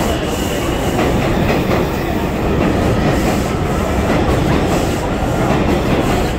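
New York City subway train running alongside the station platform: a loud, steady rail rumble with irregular clacks of the wheels over the track. A faint high whine fades out about a second in.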